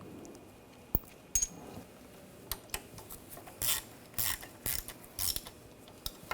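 Hand tools clinking and clicking against metal parts: a couple of sharp clicks, then a run of short metallic clatters.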